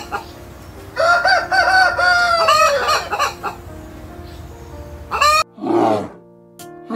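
Rooster crowing about a second in, one long call of several notes, with hens clucking around it. Near the end a brown bear gives a short, low, rough call.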